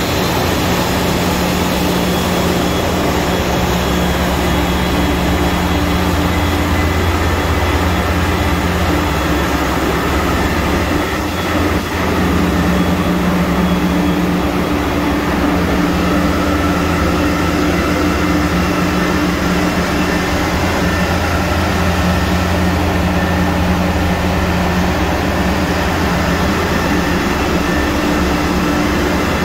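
Cruise ship engine-room machinery running, fuel separators and pumps among it: a loud, steady drone with several constant hum tones.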